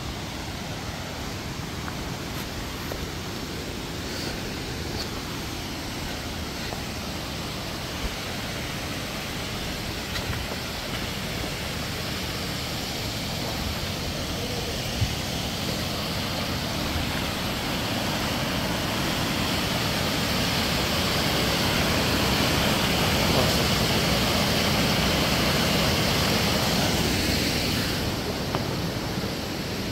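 Waterfall water rushing in a steady roar that swells louder through the middle and falls off again near the end, with one short click about halfway through.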